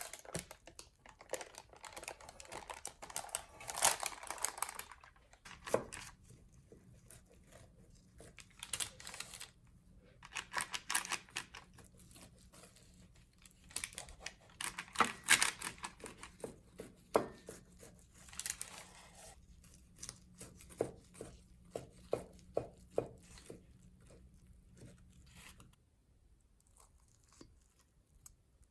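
Parchment paper rustling and crinkling in bursts as it is handled, with a run of sharp clicks and taps in the later part and a faint steady low hum beneath.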